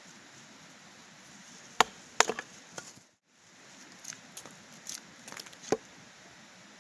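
A bladed tool chopping and splitting wood: a series of sharp, irregular wooden knocks, about eight in all. A brief drop to silence a little after three seconds in breaks the series.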